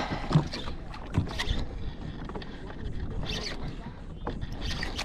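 Irregular knocks and light clatter of gear being handled on a fishing kayak, over a steady background hiss.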